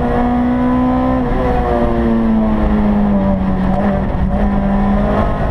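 Rally car's engine running hard under load, heard from inside the cabin over road and tyre noise. The engine note breaks briefly about a second in, sags slightly, and breaks again and picks back up near four seconds in.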